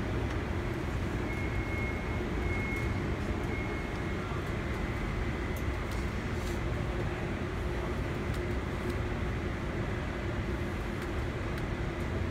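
Steady low rumble with a faint hum: the background noise of a large hall, with a few faint clicks.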